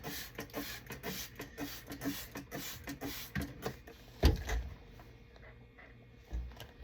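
Trigger spray bottle squirted over and over, quick hissing sprays about three or four a second, with a loud knock about four seconds in and a softer one near the end.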